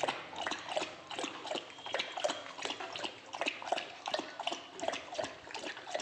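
A Rottweiler lapping water from a plastic bowl, a steady run of wet laps at about three a second.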